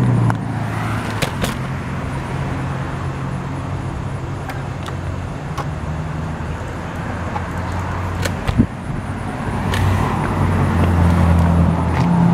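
Vehicle engine idling with a steady low hum, with a few light clicks and knocks over it.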